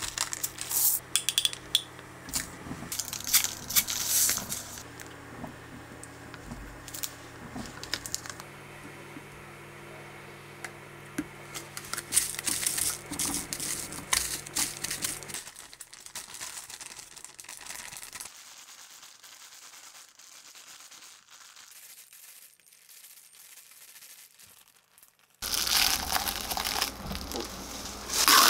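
Plastic zip-top bag crinkling and rustling as seasoning is shaken into it and the bag is handled, with bursts of crackle. It goes much quieter for several seconds past the middle, then loud plastic crinkling starts suddenly near the end.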